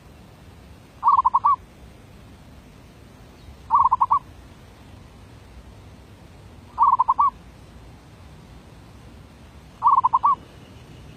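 Zebra dove (merbuk) cooing: four short bouts of rapid staccato coos, each about half a second long and roughly three seconds apart.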